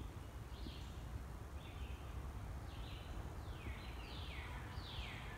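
Dry-erase marker squeaking across a whiteboard while writing, a string of short strokes that each slide down in pitch, over a low steady background rumble.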